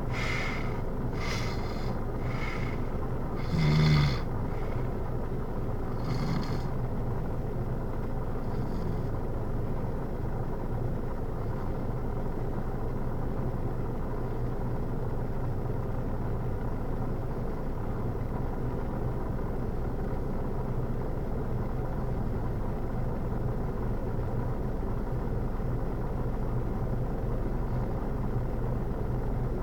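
A man snoring: a few rough breaths early on, with the loudest snore about four seconds in. A steady low hum runs underneath.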